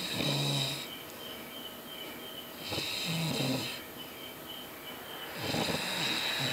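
A man snoring loudly: three rasping snores, each about a second long, coming roughly every three seconds, with a low buzzing rattle on the in-breath.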